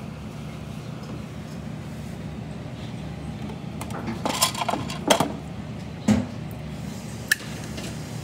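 Dishes and tableware clinking and knocking on a restaurant table over a steady low background hum: a cluster of clinks about halfway through, then two single sharp knocks near the end.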